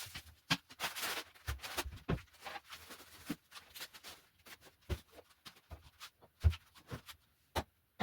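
Shopping items being handled and set down: irregular rustling, with light knocks and thumps that come every second or so.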